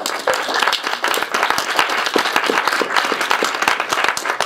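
Audience applauding: many people clapping together, starting abruptly and holding steady and loud.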